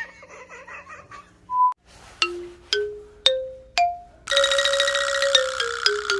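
A short electronic beep, then four plinked mallet-like notes climbing in pitch, followed by a busy jingling comic sound-effect tune that steps down in pitch.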